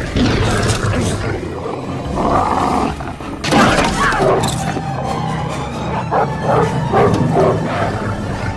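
Film soundtrack mix: dramatic score under dogs barking and snarling, with a woman crying out in fright. The pitched cries come in short, broken calls, thickest in the second half.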